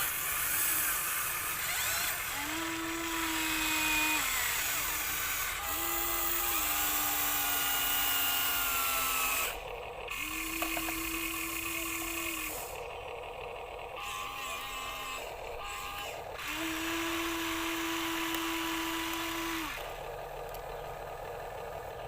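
Small electric motors of toy radio-controlled construction vehicles whining in repeated bursts of one to three seconds, each starting and stopping with a short slide in pitch, over a steady hiss.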